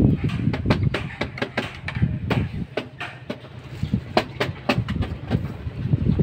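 Footsteps on a bamboo-slat walkway, with irregular clicking and knocking of the slats and low thuds underfoot.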